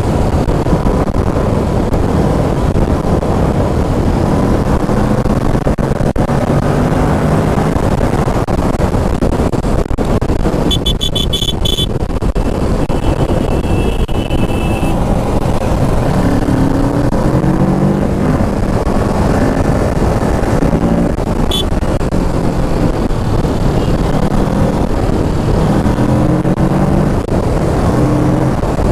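Kawasaki Ninja 650's parallel-twin engine running at road speed under heavy wind rush, its pitch rising and falling as the throttle opens and closes through gear changes. A short run of high-pitched beeps comes about eleven seconds in.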